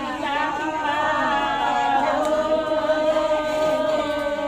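Several voices singing together, some notes bending and others held long and steady.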